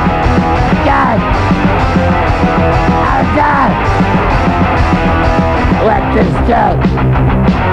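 Hardcore punk song at full volume: a dense, loud band mix of guitar, bass and drums with vocals.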